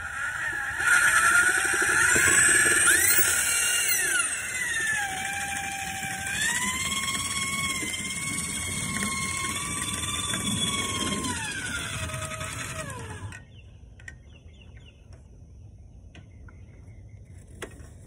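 Corded drill spinning a dryer-vent cleaning brush on extension rods inside the vent duct, its motor whine rising and falling in pitch as the speed changes. It stops suddenly about 13 seconds in, leaving only a few faint knocks.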